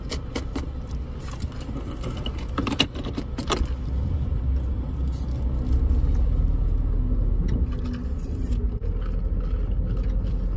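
Low rumble of a car's engine and road noise heard inside the cabin, growing louder a few seconds in as the car gets moving. In the first few seconds there are light clicks and rattles as plastic cups and straws are handled.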